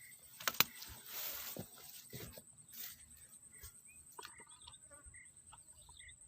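Close handling noise: two sharp clicks, a short rustle and a few small knocks, over a faint high chirp repeating every half-second or so.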